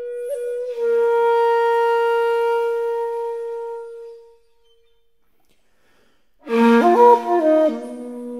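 Shakuhachi playing solo: a long held note that fades away, a pause of about two seconds, then a breathy attack with a quick flurry of ornamental pitch steps settling onto a lower held note.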